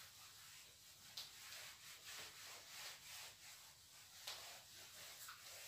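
Whiteboard duster scrubbing back and forth across the board in quick, faint strokes, with a couple of light taps against the board.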